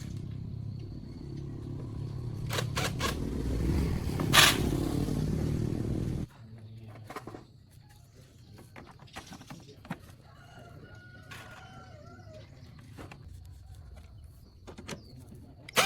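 Restored CFMOTO 250cc motorcycle engine running with a steady low rumble, a brief louder burst about four seconds in, then shut off abruptly about six seconds in. Afterwards a rooster crows faintly a few seconds later.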